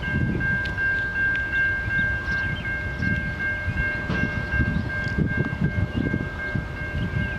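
A railroad crossing bell rings steadily while the gates are down and the lights flash, over the low rumble of locomotives approaching.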